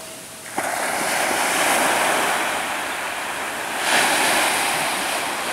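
Ocean surf breaking and washing up the sand in a steady rush. It comes in suddenly about half a second in and swells again about four seconds in.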